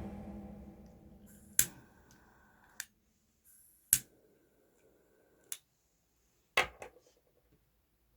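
The tail of music dying away, then a handful of short, sharp clicks at uneven intervals, two of them close together near the end.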